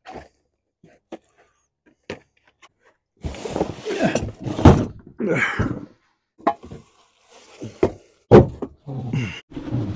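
A car's removed fuel tank being handled and tipped to empty it: a few light clicks, then about three seconds of dense rattling, scraping handling noise, then several separate thunks, the loudest near the end.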